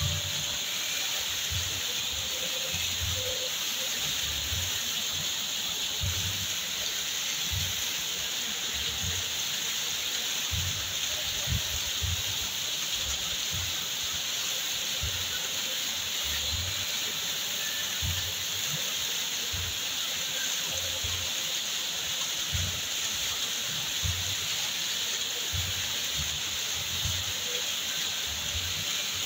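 Waterfall rushing steadily, a constant hiss of falling water, with irregular low thuds underneath.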